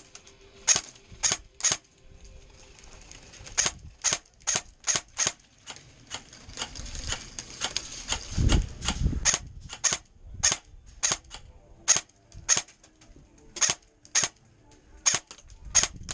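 Airsoft gun firing single shots in an irregular string, about two dozen sharp cracks, some in quick pairs. A brief low rumble comes about halfway through.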